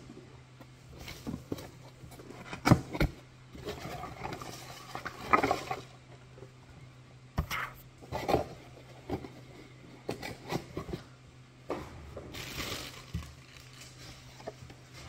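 Cardboard Funko Pop window boxes being handled and set down on a table, giving a string of sharp knocks and taps, with rustling of paper and plastic packaging about four to six seconds in and again near the end.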